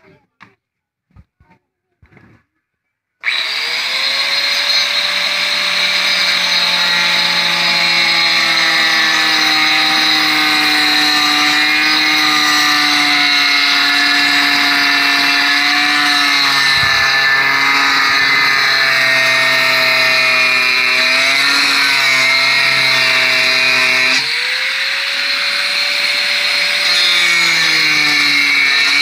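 An electric angle grinder switches on about three seconds in and spins up with a rising whine. It then runs steadily while grinding down the wooden strips of a boat frame. Its pitch sags under load, rises again about 24 seconds in as the disc comes off the wood, then sags again.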